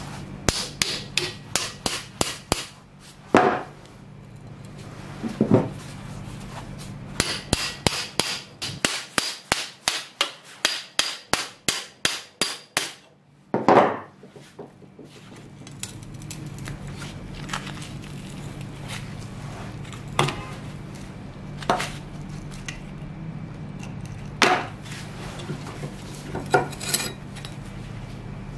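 A steel chisel-like tool being tapped into the rotted wooden handle of a rusty cleaver clamped in a vise, knocking the old wood off the tang: quick runs of light taps, about four or five a second, broken by single heavier knocks. A steady low hum runs underneath.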